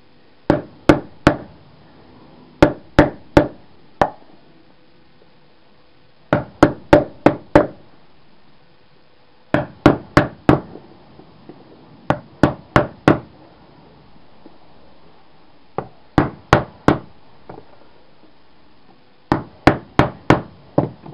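Hammer blows on lead-sheathed conduit to split it lengthwise for its copper: sharp knocks in quick runs of three to five, about three a second, with short pauses between runs.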